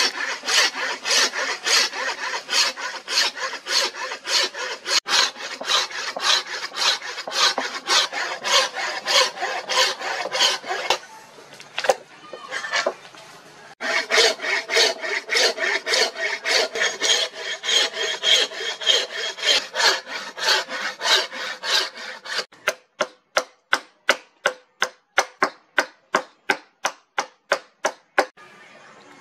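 Thin-bladed hand saw cutting a hardwood handle blank in back-and-forth strokes, about three a second. The sawing stops for a few seconds near the middle, then resumes. In the last few seconds the strokes come sharper, with short silences between them.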